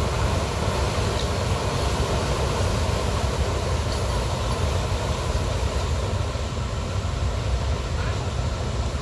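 Heavy diesel truck engines running steadily, a continuous low rumble with no change in speed.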